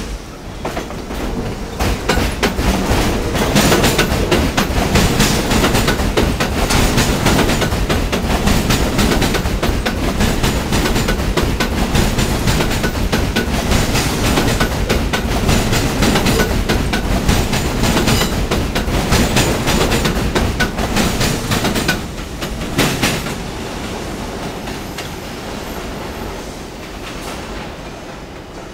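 New York City subway train passing, its wheels clattering over the rail joints. It builds up over the first couple of seconds, stays loud for about twenty seconds, then fades as it goes away.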